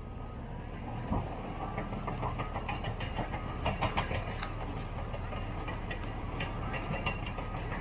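Caterpillar D6T XL bulldozer working at a distance: a steady diesel rumble broken by frequent sharp cracks and clanks as it pushes through brush and trees, with a heavier thump about a second in.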